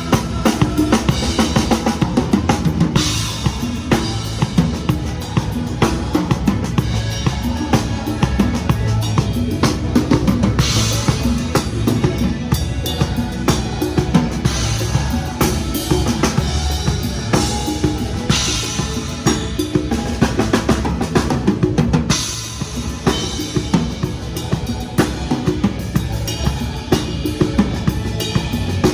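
Pearl Reference drum kit played in a steady groove of bass drum, snare and cymbals over a song's backing track, with several cymbal crashes ringing out along the way.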